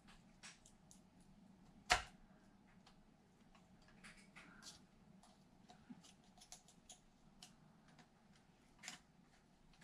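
Small, irregular clicks and taps of a hand tool working thin shims into an Arrma Kraton's rear differential housing, with one sharper click about two seconds in.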